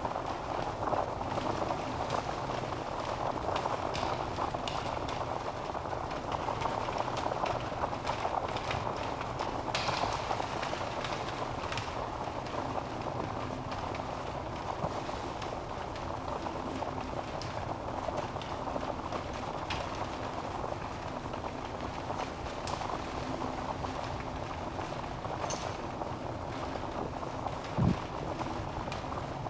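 Wood fire burning in a fireplace: a steady rushing hiss with scattered crackles and pops from the logs. A single low thump near the end is the loudest moment.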